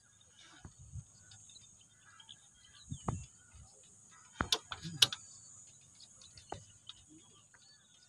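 A few scattered knocks and sharp clicks, with a quick run of several about four and a half to five seconds in, over a steady high hiss.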